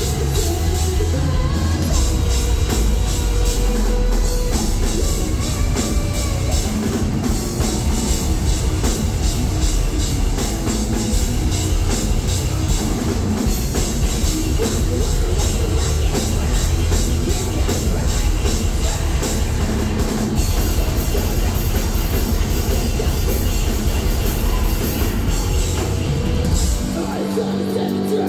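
Live heavy metal band playing loud: pounding drum kit with fast, steady cymbal hits, distorted bass and guitar, and singing. Near the end the drums and low end drop out for a moment.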